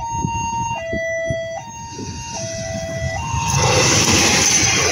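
Railway level-crossing warning alarm sounding an electronic two-tone chime, alternating high and low about every 0.8 s. About three and a half seconds in it gives way to the louder rumble and rush of a KAI CC 201 diesel-electric locomotive passing at the head of the Ambarawa Express.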